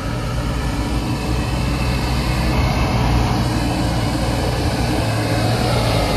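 Sherp N amphibious ATV's diesel engine running under load as the vehicle crawls over muddy ground, a steady low drone that grows slightly louder over the first few seconds.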